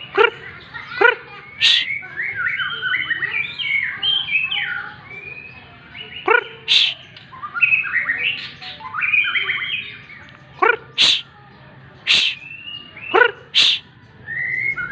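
White-rumped shama (murai batu) singing: fast, varied warbling phrases broken by short, loud, sharp notes that sweep up high, heard several times.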